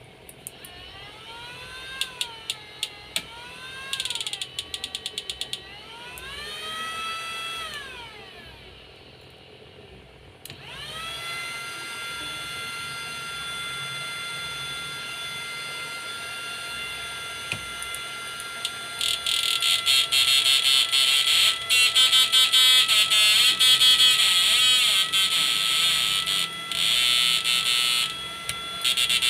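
Electronic tones from a sound generator through a loudspeaker. Wavering tones slide up and down like a siren, with bursts of fast clicks, for the first several seconds. About ten seconds in, a steady high tone sets in, and from about halfway on a louder fast clicking chatters over it.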